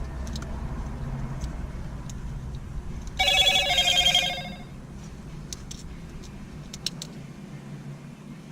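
An electronic ringing tone sounds about three seconds in, warbling for about a second and a half over a low background hum, followed by a few small clicks.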